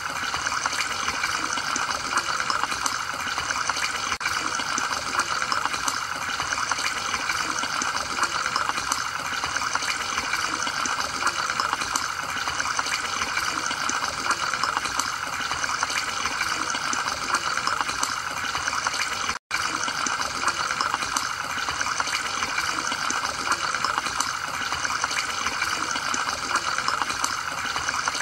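Steady bubbling and trickling of water from an aquarium's air-driven sponge filters, broken by a split-second dropout about two-thirds of the way through.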